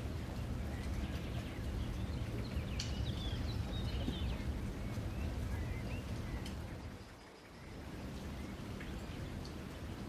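Ambient nature soundscape: small birds chirping in short calls over a steady rain-like hiss. The sound dips briefly about seven seconds in, then comes back.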